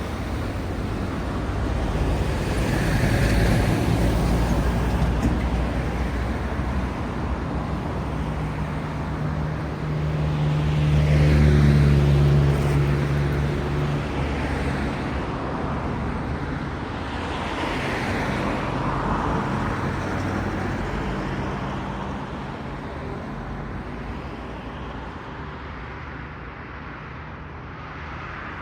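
Road traffic at an intersection: vehicles passing one after another with tyre noise. One vehicle's low engine note swells and fades, loudest about twelve seconds in.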